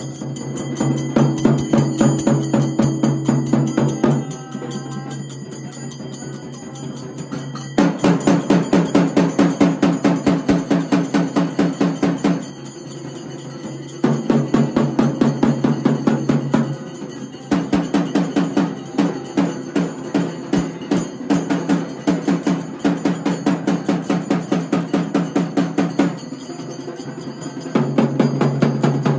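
Folk percussion, most likely the Oggu Katha troupe's drums with jingling cymbals, beating a fast, even rhythm over a steady low tone. The playing comes in several loud spells, dropping back briefly in between.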